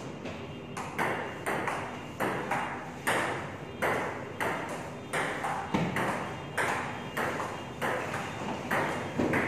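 Table tennis rally: the celluloid-type ball clicking sharply off the paddles and the table, about two to three hits a second, starting about a second in.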